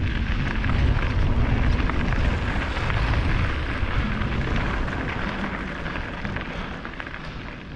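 Wind buffeting a GoPro's microphone on a moving mountain bike, with tyres crunching over gravel; the rumble grows quieter toward the end.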